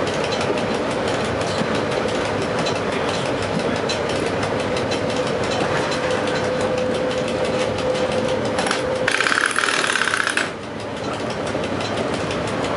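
EU07 electric locomotive running along the track, heard from inside its cab: a steady rumble of wheels and running gear with a steady hum. About nine seconds in, a loud rasping buzz sounds in the cab for about a second and a half.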